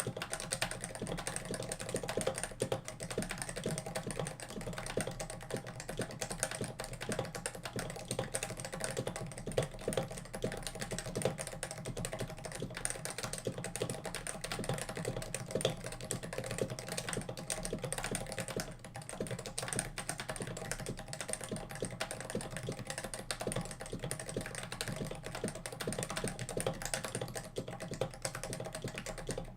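Fast, continuous typing on a keyboard fitted with GMK keycaps: a steady, dense stream of key clacks.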